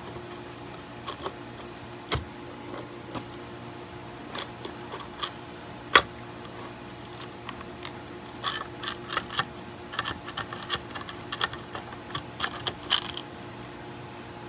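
Light clicks and small metallic clinks of tools and small metal parts being handled during work on a transmission valve body. The clicks are scattered at first, with one sharper click about six seconds in, then a quick run of clinks over several seconds near the end, all over a steady low hum.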